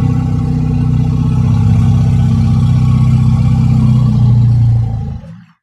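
An elephant giving one long, low-pitched call that holds steady and fades out about five seconds in.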